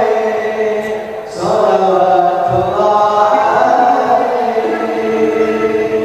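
Male voices singing a sholawat (Islamic devotional song) into microphones in long, drawn-out chanted phrases. There is a short break about a second in, then one long held phrase.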